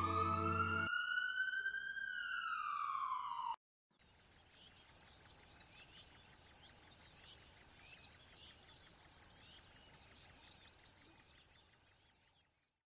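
A single siren-like wail that rises and then falls before cutting off suddenly. After a moment of silence come faint birds chirping over a steady high-pitched hiss, fading out near the end.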